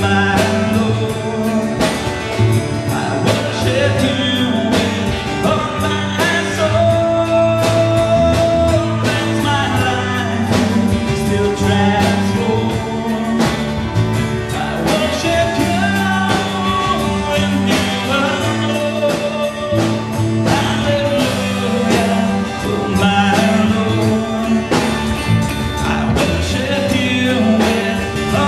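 Live worship rock band playing a song: drum kit keeping a steady beat under bass and electric guitar, with a singing voice over the top.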